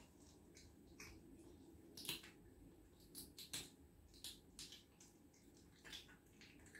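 A cat chewing raw fish giblets from a plate: quiet, irregular wet clicks and smacks of its mouth, the loudest about two seconds in.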